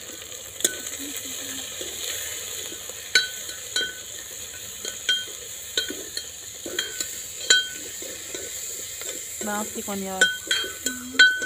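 Steel ladle stirring chopped green chillies frying in a metal pot, with a steady sizzle. The ladle strikes the pot in sharp ringing clinks about every second or so.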